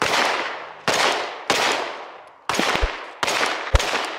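Six pistol shots from a compensated 9mm Glock 19, fired at an uneven pace of about one every half second to a second. Each crack rings out and fades over most of a second.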